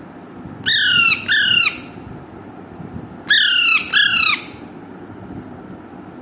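Alexandrine parakeet giving two pairs of loud, harsh squawks, each call falling in pitch, the pairs about two and a half seconds apart.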